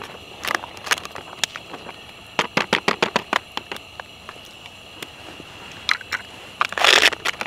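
Foil freeze-dried meal pouch crinkling as it is handled and folded closed, with scattered sharp crackles, a quick run of them about halfway through and a louder crinkle near the end.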